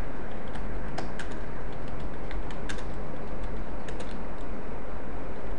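Computer keyboard being typed on: irregular key clicks, a few a second, over a steady background hiss and low hum.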